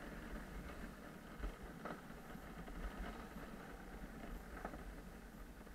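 Gravity luge cart rolling downhill on a concrete track: a steady low rumble and hiss from the wheels and rushing air, with a couple of faint knocks.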